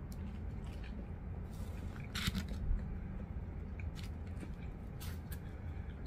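A person chewing a mouthful of sandwich, with scattered short crunchy clicks and crackles. The loudest crunch comes about two seconds in.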